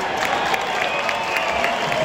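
Large stadium crowd cheering and applauding after a home-team score, a steady wash of noise with individual shouts and whistles rising above it.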